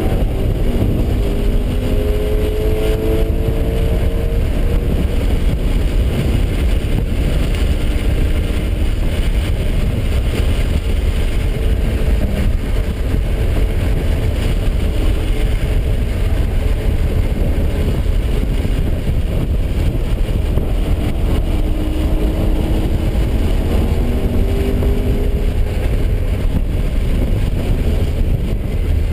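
BMW 3 Series engine pulling hard at track speed, heard from inside the cabin: its note climbs as the car accelerates at the start and again in the last few seconds. A steady low rumble of road and wind noise runs underneath.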